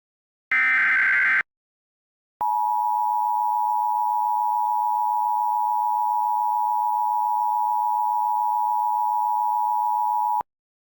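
Emergency Alert System SAME header: the last of its harsh, buzzy digital data bursts ends about a second in. Then, after a short gap, a steady, loud EAS attention tone sounds for about eight seconds and cuts off abruptly, announcing the alert that follows.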